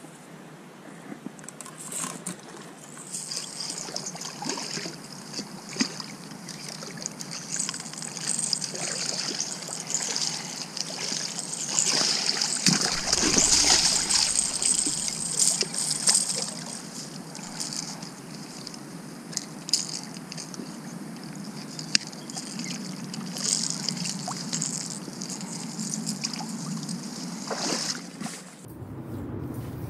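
Water sloshing and trickling, loudest near the middle, with scattered small clicks and knocks.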